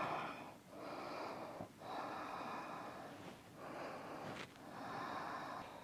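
A woman breathing audibly and slowly while holding downward-facing dog: a few soft, drawn-out breaths in and out, each lasting about a second.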